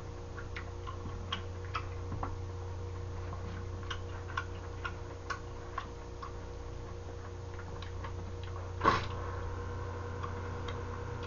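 Light, irregular clicks of wooden chopsticks against a takeout tray while picking up stir-fried gopchang, over a steady low hum; a single louder knock about nine seconds in.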